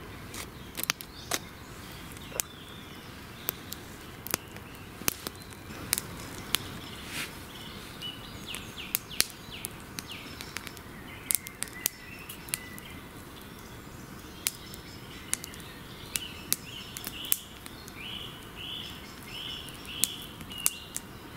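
Wood fire crackling in a small twig stove, with sharp irregular pops one to three a second. A bird sings over it, with a run of about five quick repeated chirps near the end.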